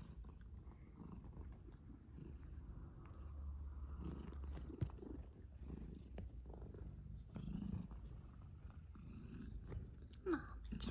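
Domestic cat purring steadily, a low pulsing rumble, with a brief rising squeak-like call near the end.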